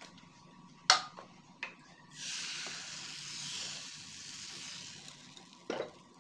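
Green coconut-milk crepe batter sizzling and hissing in a hot non-stick frying pan for about three seconds as it is poured and swirled, starting suddenly about two seconds in. A sharp knock comes about a second in, and a clunk near the end as the pan is set back on the gas burner.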